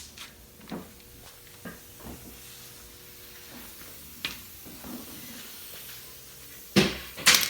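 Two short hissing blasts of compressed air from an air hose near the end, after a stretch of faint clicks and handling noise over a low steady hum.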